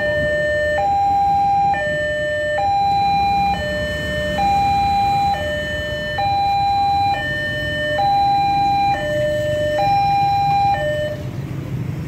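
Railway level-crossing warning alarm: an electronic two-tone signal alternating between a low and a higher tone, each held just under a second, repeating steadily until it cuts off about eleven seconds in. Motorcycle engines and road traffic run underneath and come forward once it stops.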